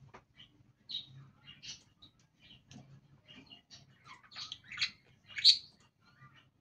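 Budgerigars chirping and chattering in a string of short calls, the loudest pair of chirps coming about five seconds in.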